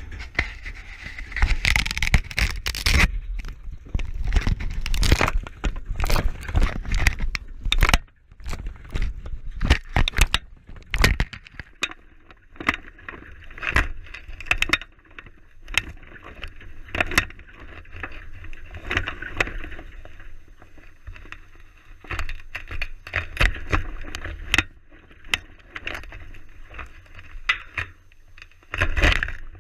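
Irregular knocks, clicks, scrapes and crackles right on a GoPro camera's housing as an Arctic gray wolf noses and handles it by a chain-link fence. The knocking is densest in the first few seconds, then comes and goes in short bursts of scraping and tapping.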